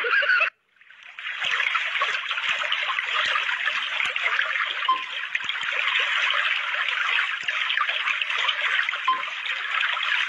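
Steady trickling, babbling water like a small stream. It fades in about a second in, after a brief drop-out.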